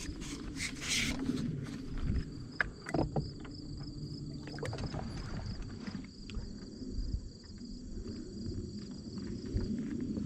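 Scattered knocks and clatters of a landing net and its handle being picked up and handled in a bass boat, over a low rumble and a steady high-pitched drone.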